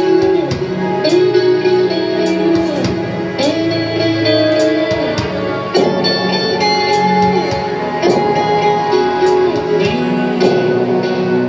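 Background music: long held notes that slide from one pitch to the next, over scattered sharp percussive ticks.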